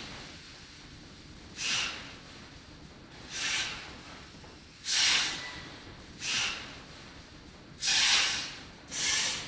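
Sound installation of hanging black panels giving short bursts of hiss, six at uneven intervals of one to two seconds. The bursts about halfway through and near the end are the longest and loudest, over a steady low background noise.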